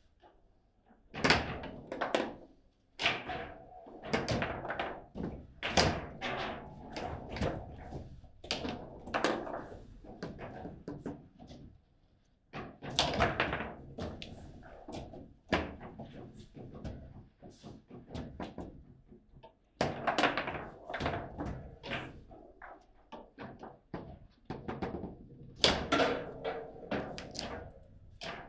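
Table football (foosball) in play: a rapid, irregular run of hard knocks and thunks as the ball is struck by the rod-mounted figures and bangs around the table.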